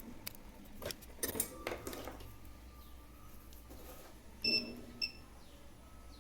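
A few light clicks and taps of meter probes against a small part, then a multimeter's continuity beeper giving two short beeps, the first a little longer. The beeps signal continuity through the removed BC547 transistor: it is shorted.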